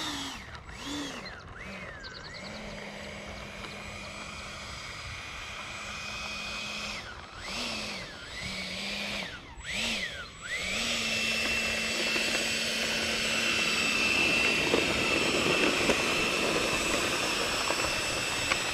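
E-flite F-16 Thunderbird's 70 mm electric ducted fan whining as the jet taxis. The pitch swoops up and down with several short throttle blips, then holds at a steady, louder whine for the last several seconds.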